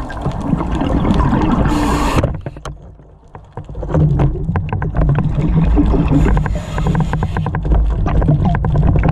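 Underwater sound heard through a diver's camera: a steady low rumble with scattered crackling clicks. A brief hiss comes near two seconds in, followed by a quieter second before the rumble returns.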